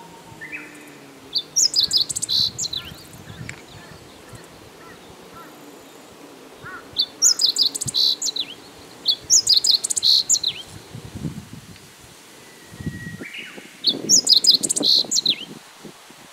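Meadow bunting singing: four short phrases of quick, high notes, a few seconds apart.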